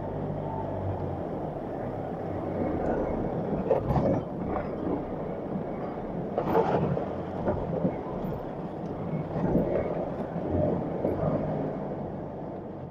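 Land Rover Defender 110 crawling over rock in low range, heard from inside the cab: a steady engine and drivetrain rumble with several knocks and rattles from the body as it rolls over bumps.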